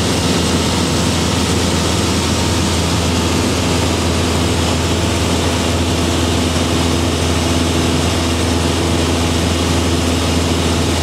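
Small aircraft's engine and propeller running steadily in cruise, heard from inside the cabin: a constant low hum with an even hiss over it.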